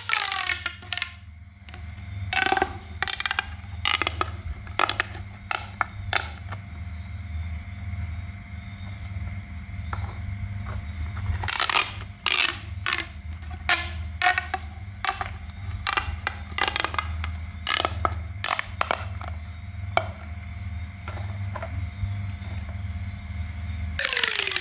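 Close-up sounds of hands working on a homemade pop toy: irregular sharp clicks and snaps with scraping and creaking between them, over a steady low hum.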